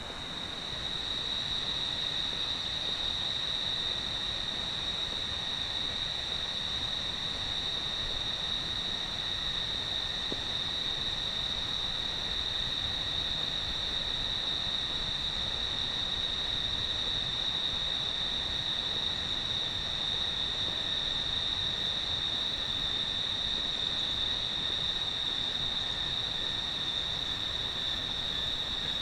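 Steady, high-pitched drone of jungle insects, unbroken, over a constant hiss of background noise.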